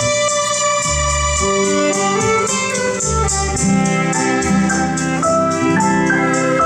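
Recorded music played back through vintage JBL C38 two-way loudspeakers (D130 woofers, 075 ring-radiator tweeters): an instrumental passage of sustained organ-like keyboard chords over a moving bass line, with steady light percussion ticks about four times a second.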